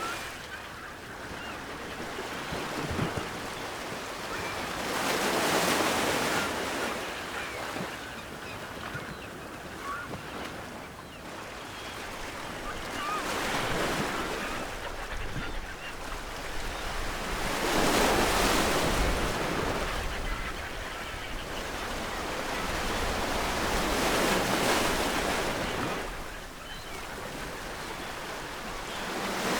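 Ocean waves breaking on the shore, a steady rush that swells into a louder surge every few seconds and falls back. Faint distant seagull calls.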